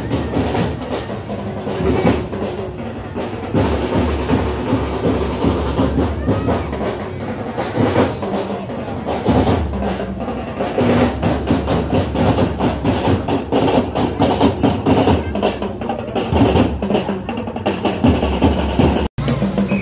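Marching drum band of bass drums and snare drums playing a steady stream of beats.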